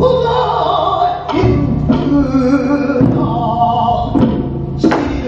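Korean fusion music: long held sung notes over a steady low backing, cut by a few heavy drum strikes, likely on a daebuk (big barrel drum).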